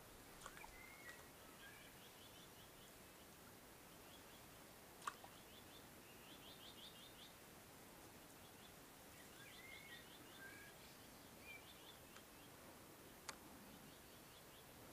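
Faint songbird song: short slurred whistles and rapid trills, repeated several times. Two sharp clicks stand out, about five seconds in and near the end.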